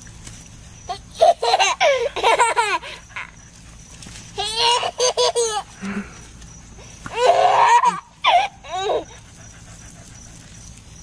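A toddler laughing in three bouts of giggles, about a second in, around four and a half seconds in, and around seven seconds in.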